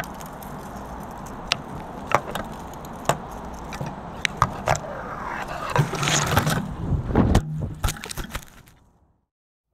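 Audio from a crashed FPV drone's onboard camera, lodged among tree branches: a steady rustling hiss with sharp clicks, knocks and scrapes as branches and leaves rub against the frame. The knocking grows busier and louder in the second half, then dies away near the end.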